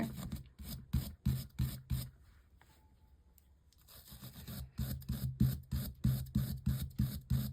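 Wire brush scrubbing a lead came joint clean before soldering, in quick back-and-forth strokes about three a second, with a pause of about two seconds midway before the scrubbing resumes.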